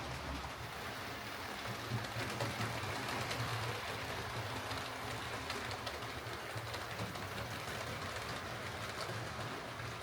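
Hornby OO gauge Battle of Britain class model steam locomotive running on track: a steady electric-motor hum with light clicking from the wheels on the rails. The locomotive is running again now that the broken wires in its tender have been repaired.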